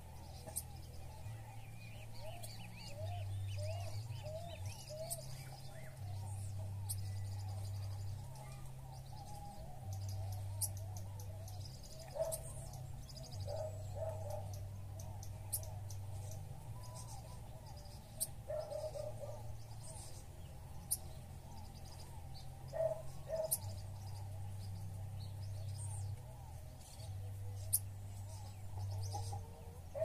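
Small songbirds calling: sharp high chips scattered throughout, and lower whistled notes, including a run of four quick rising ones a few seconds in and bunched calls later on. A low hum runs underneath.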